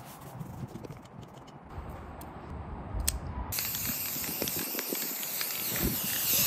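Aerosol spray paint can hissing steadily as paint is sprayed onto a rifle, starting about halfway through, just after a single sharp click.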